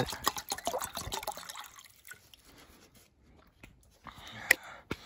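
Water poured from a plastic bottle splashing into a metal camping pot, the pour thinning out about two seconds in. A single sharp click sounds near the end.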